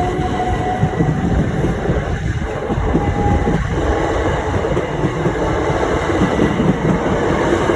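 Electric train running on the rails: a loud, steady rumble with a thin whine that rises slightly and stops about three and a half seconds in.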